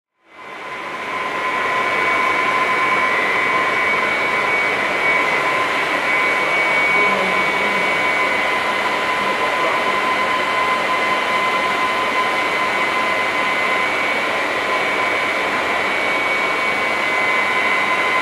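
Steady rushing of an electric fan or blower running, with two constant high whining tones. It fades in over about the first second.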